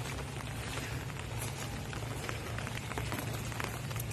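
Steady hiss of light rain with scattered small ticks of drops, over a low steady rumble.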